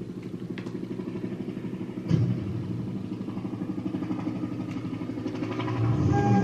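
A vehicle engine idling with a low, fast, even pulsing. There is a sudden hit about two seconds in, and the engine swells louder near the end.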